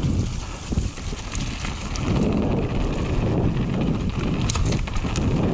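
Mountain bike riding fast down a wet gravel trail: wind buffeting the microphone over a steady rumble of tyres on gravel, with scattered sharp clicks and rattles from the bike.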